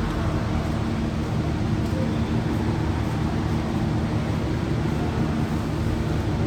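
Vehicle engine drone at a steady speed with road and wind noise, as heard inside a moving car.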